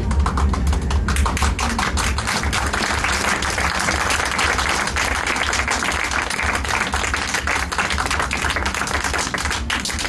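A group of people clapping their hands continuously, many claps overlapping.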